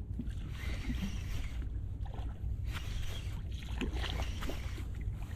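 Steady low rumble of wind and water around an inflatable boat, with faint ticks of a spinning reel being wound in as a hooked perch is brought to the surface.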